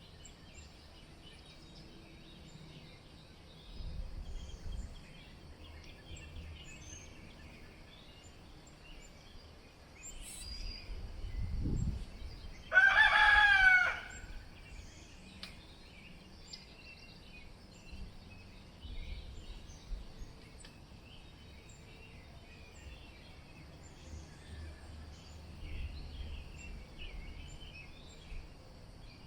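A rooster crows once, loud and about a second long, halfway through. Small birds chirp faintly throughout, and gusts of wind rumble on the microphone now and then.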